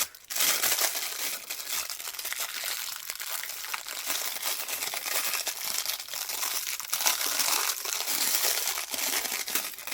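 Packaging crinkling and crackling continuously as a roll of twine is unwrapped and handled.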